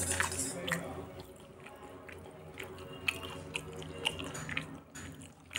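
Two kittens eating khichdi off the floor: scattered wet smacking and clicking chewing sounds, irregular and a second or less apart, over a steady low hum.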